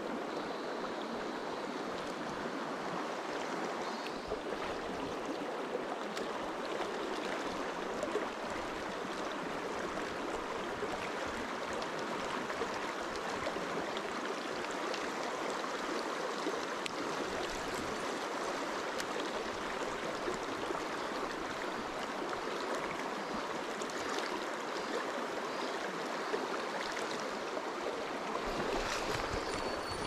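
Shallow mountain stream running steadily over rocks and stones, an even rushing of water that grows a little louder near the end.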